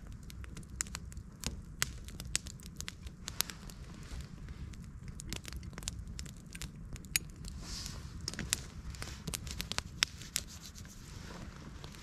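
Small wood campfire of thin sticks crackling, with frequent irregular sharp pops and snaps. A plastic bag crinkles briefly about eight seconds in.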